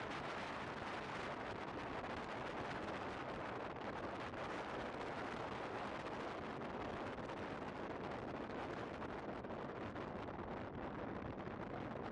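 Strong wind buffeting the microphone aboard a sailboat: a steady, heavy rushing noise.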